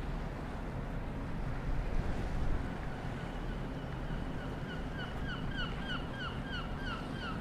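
A bird calling a rapid run of short, downward-sliding notes, about three a second, that begins faintly about three seconds in and grows clearer, over a steady low rumble of wind and sea.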